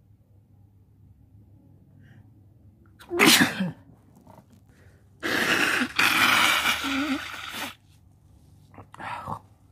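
A man sneezing: one short, sharp sneeze about three seconds in. About two seconds later comes a longer, loud, noisy burst lasting about two and a half seconds with a brief break in the middle, and a fainter short burst near the end.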